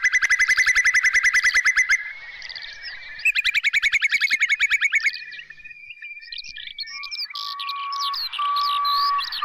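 Whimbrel giving its rapid tittering trill, a fast run of evenly repeated whistled notes, in two long runs. From about seven seconds in comes a different jumble of chirping calls over a series of steady, lower whistled notes.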